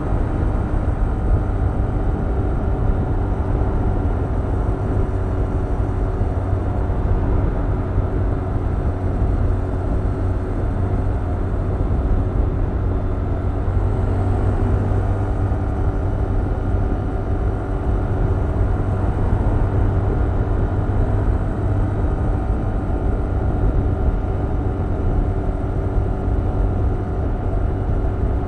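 Stock 2021 Yamaha MT-07's 689 cc parallel-twin engine and exhaust running while riding, holding a fairly steady engine speed with only small shifts in pitch.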